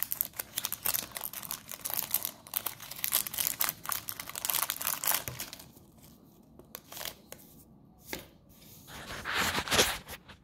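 Crinkly wrapper of a Ferrero Raffaello sweet being peeled open by hand: dense crackling and tearing of the wrapper, thinning out to scattered crinkles about halfway through, then one more louder burst of crinkling near the end.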